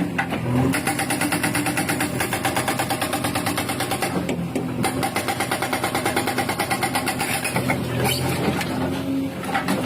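Hydraulic hammer (rock breaker) on a JCB 3DX backhoe loader pounding in rapid, even blows over the diesel engine's running. The hammering starts just under a second in and stops about eight seconds in.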